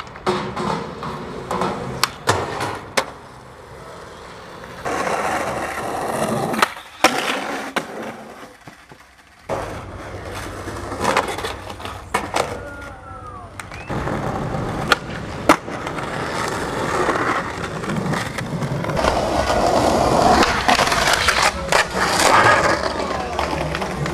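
Skateboards on concrete: urethane wheels rolling, board pops and several sharp cracks of landings, with trucks and boards grinding and sliding along ledges. The sound changes abruptly several times between separate clips.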